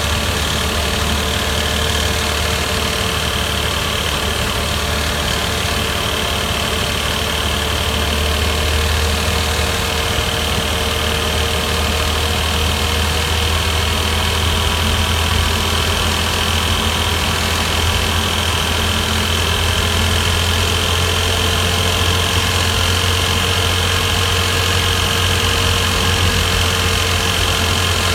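Porsche Boxster 986 S's 3.2-litre flat-six engine running steadily, a constant low drone with a faint steady whine above it.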